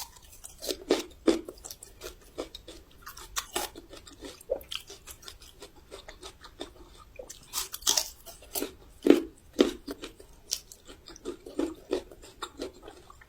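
Raw Shandong yellow ginger root being chewed, with irregular crisp crunches throughout; the sharpest bites come about eight and nine seconds in.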